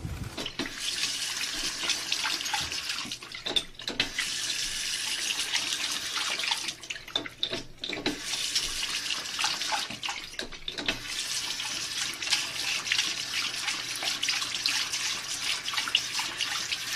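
Water running steadily from a tap, interrupted briefly a few times.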